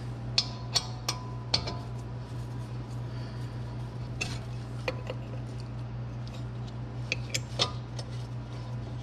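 Sharp metallic clicks and clinks of a steel hex key against the brake caliper's slide pins and bracket as the pins are screwed in. The clicks are scattered: several in the first two seconds, a couple around four to five seconds, and a quick cluster around seven seconds. A steady low hum runs underneath.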